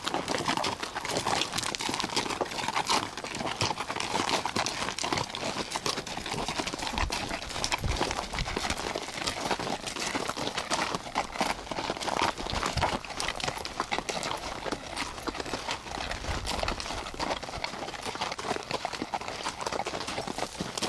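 Ridden horses' hooves clip-clopping steadily on a trail, a dense run of hoof strikes with no pause.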